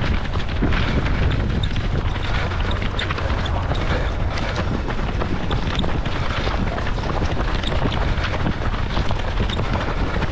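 Wind buffeting the microphone of a handheld camera carried by a running runner: a loud, steady rumble with crackling, with no pause through the whole stretch.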